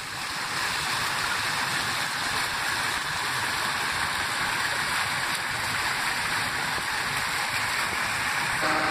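Fountain jets splashing into a stone basin: a steady rush of water that grows louder over the first second. A steady hum comes in at the very end.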